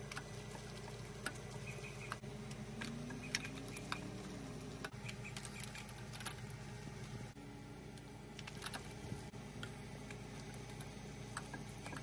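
Scattered light metallic clicks and taps from a socket extension and hand tool working in the spark plug wells of a 3.5 V6, as new spark plugs are tightened. A low steady hum runs underneath.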